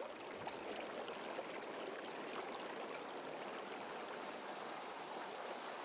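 Water running steadily along a stone-lined acequia irrigation canal.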